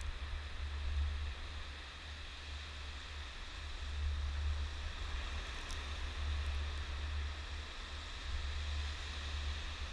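Surf breaking on a sandy beach, a steady rushing hiss of waves, under a deep wind rumble on the microphone that swells and fades every second or two.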